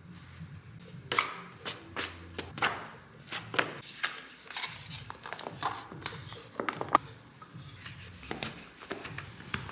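Kitchen utensil tapping and scraping in food preparation, with irregular sharp knocks a few times a second.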